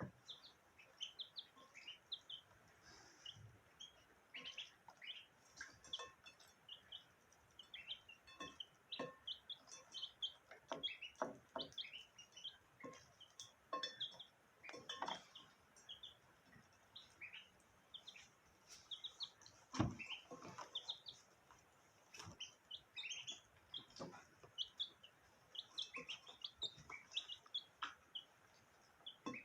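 Small birds chirping steadily in many short, high chirps: a budgerigar together with chicks and ducklings. Occasional sharp taps come through, the loudest about twenty seconds in.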